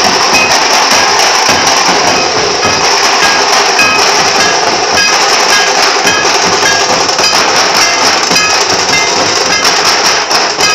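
A street band of large dhol drums beating loud and dense without a break, mixed with the noise of a big crowd.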